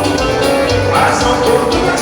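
Band music with a steady beat, Latin-style dance music.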